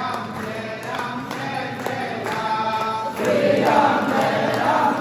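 A group of voices singing a Hindu devotional chant together in long, wavering held notes; it grows louder about three seconds in.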